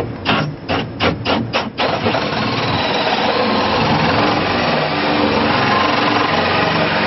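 Power drill turning a 3-inch hole saw guided by a 1-inch hole saw as its pilot, cutting a hole. There are five short bursts in the first two seconds, then it runs steadily through the cut.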